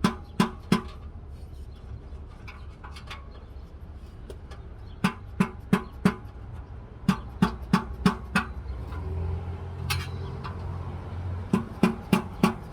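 Quick runs of sharp knocks, four to six at a time with pauses between, from a screwdriver worked against the exhaust hanger and its bracket to pry the rubber hanger loose.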